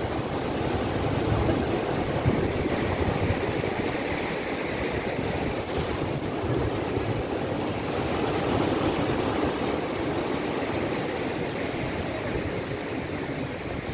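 Sea surf breaking and washing up the beach, a steady rush that swells gently as each wave comes in, with wind buffeting the microphone underneath.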